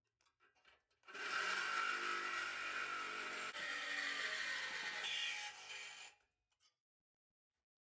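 A Milwaukee Hackzall cordless reciprocating saw cutting through thin sheet steel. It starts about a second in, runs steadily for about five seconds and stops.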